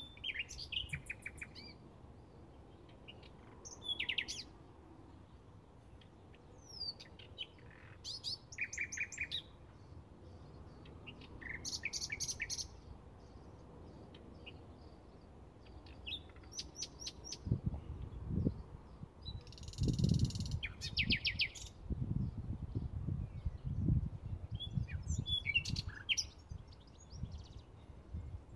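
Bluethroat singing: short phrases of rapid repeated notes and varied chirps every few seconds. Irregular low rumbling thumps come in during the second half.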